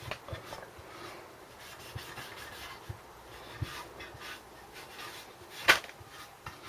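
Hand wiping and rubbing a small engine part clean, with scattered light knocks and one sharp click near the end.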